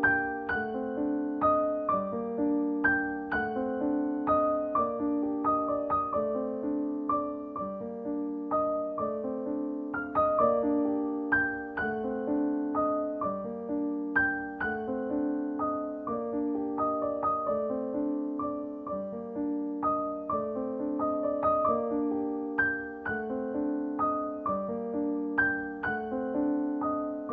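Background piano music: a steady, unbroken run of struck notes and chords.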